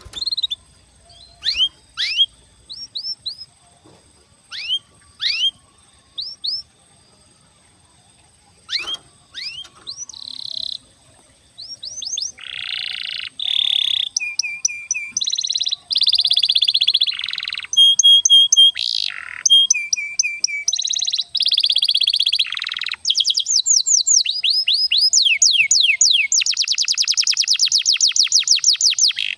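Domestic canary singing. For about the first ten seconds it gives single falling whistled notes with gaps between them. Then it breaks into continuous song of fast trills and rolls, ending in a rapid run of falling notes.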